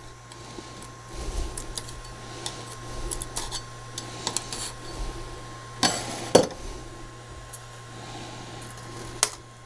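Small plastic 3D-printed parts clicking and knocking as they are handled, with a few sharp knocks a little over halfway through and one near the end, over a steady low hum.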